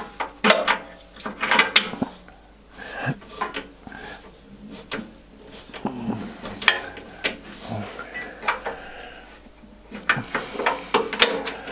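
A spanner clinking on the steel table-stop bolt and lock nut under a bandsaw table, in a run of sharp metallic clicks and taps with quieter gaps. The bolt is being turned to set the table square, at 90°, to the blade.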